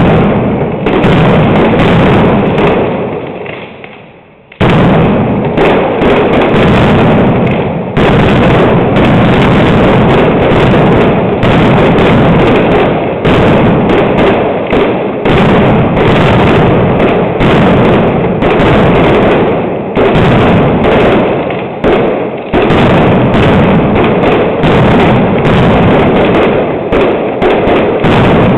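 Mascletà firecrackers: a dense, nonstop, very loud barrage of detonations. About three seconds in the barrage thins and fades for a second or so, then resumes abruptly at full force.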